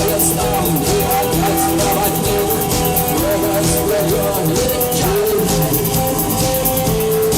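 Rock band playing live: guitars with a gliding melodic line over a drum kit's steady beat.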